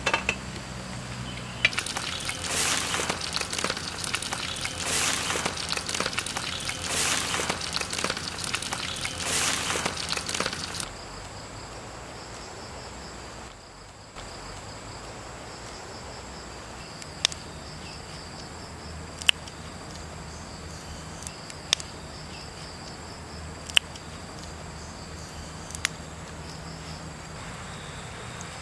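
Loud crackling sizzle of batter frying in hot oil in a wok, coming in surges, cutting off about ten seconds in. Then steady insect chirring, with sharp single clicks every two seconds or so.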